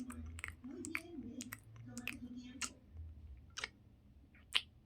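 Close-miked ASMR mouth sounds: wet lip and tongue clicks and smacks, irregular and dense at first, then sparser with a few sharper smacks near the end.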